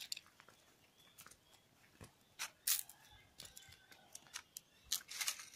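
Scattered crunches and clicks of footsteps on dry leaves and gritty concrete, with a few louder steps about two and a half seconds in and near the end.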